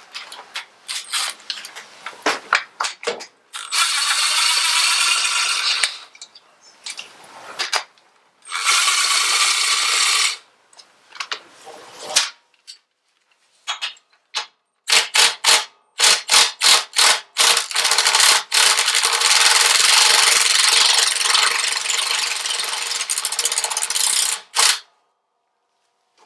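Cordless Ryobi driver with a 9/16 deep socket running against the top motor mount bolts. There are two runs of about two seconds each in the first half, a string of short trigger pulls around the middle, and a long run of about six seconds near the end, with clicks and rattles of the socket and tools between.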